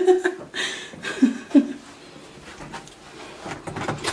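A person's voice making short vocal sounds without clear words, in a small room.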